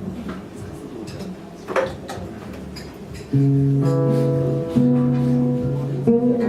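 Music: after a few faint knocks, an instrument starts playing loud, held chords about three seconds in, and the chord changes a couple of times.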